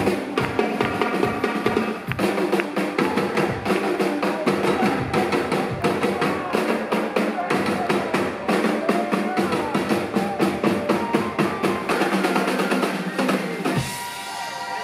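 Live drum kit and hand percussion playing a fast, dense rhythm over sustained band chords, with kick and snare hits throughout. The playing drops off about a second before the end as the song closes.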